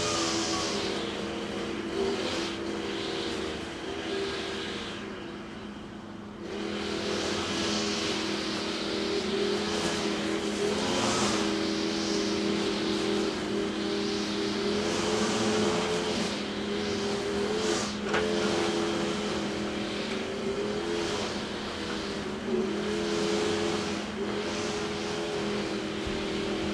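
Motorised brush cutter running at high revs, its engine note wavering as the throttle is worked. It eases off around five seconds in and picks up again about a second and a half later.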